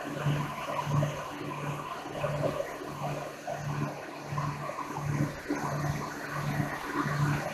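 Twin-engine propeller plane's engines and propellers droning in the cockpit over a steady rush of air, with a low regular throb about one and a half times a second.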